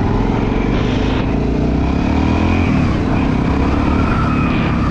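Motorcycle engine running loud, its pitch rising and then falling as it is revved about halfway through.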